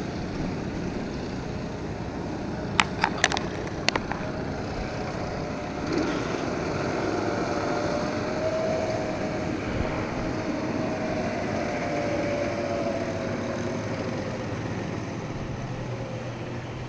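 Distant snowmobile engine running, its drone rising slightly and then fading over several seconds, over a steady noisy background. A few sharp clicks come about three seconds in.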